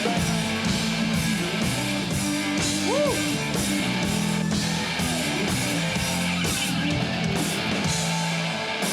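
Rock music with strummed electric guitar and a steady drum beat.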